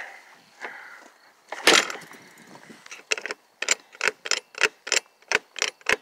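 A truck cab door shuts with one solid knock a couple of seconds in. Then the 2007 Freightliner's freshly repaired paddle door handle and lock mechanism click sharply about a dozen times, two or three clicks a second, as the latch is worked.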